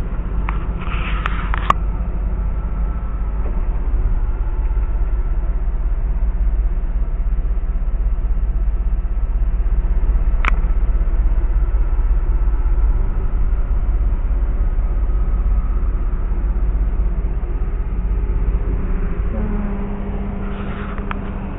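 Flooded creek water rushing past in a steady, loud low rumble. A single sharp click comes about halfway through, and a low steady hum joins in near the end.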